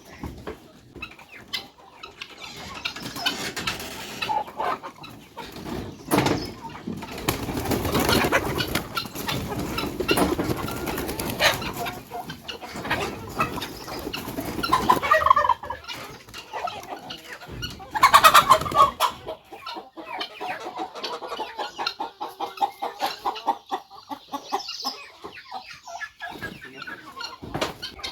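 A flock of domestic chickens clucking and calling, with a few louder calls about fifteen and eighteen seconds in and a run of quick repeated clucks near the end.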